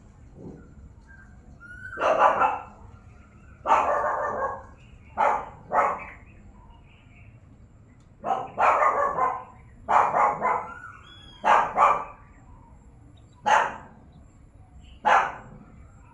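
A series of about ten short, harsh animal calls, some single and some in quick pairs, with pauses of a second or more between groups.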